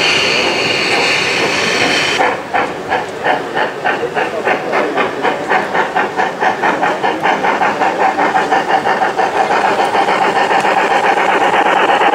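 Gauge 1 (1:32-scale) model steam locomotive of the class 50 hissing steam, then chuffing from about two seconds in, the beats steadily quickening as it pulls away with its train of tank wagons.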